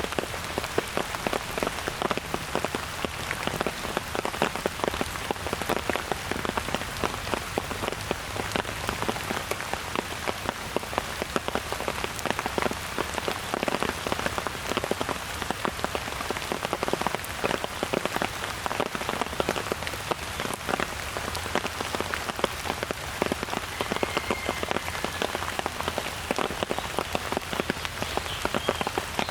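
Steady rain falling, thick with the sharp ticks of individual drops striking nearby surfaces. A few faint high calls come through near the end.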